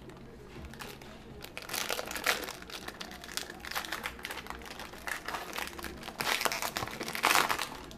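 Crinkly plastic packaging being handled, rustling in several bursts with the loudest stretch near the end.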